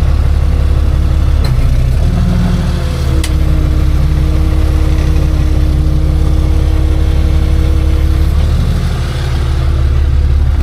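Tow truck engine idling steadily, with a couple of sharp clicks about one and a half and three seconds in.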